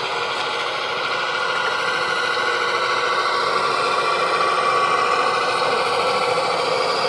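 Radio-controlled model construction machinery running: a steady mechanical whine and hum that grows slowly louder.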